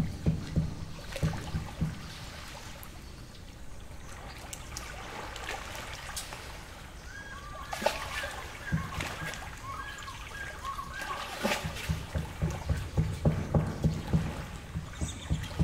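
Small lake waves lapping and splashing against the shore, coming in a run of quick low slaps at the start and building again in the last few seconds. In the calmer middle, birds give a series of short chirps.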